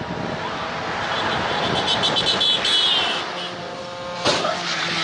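A motor vehicle passing on the road, swelling to its loudest about halfway through and then fading, over rough outdoor noise on a phone microphone.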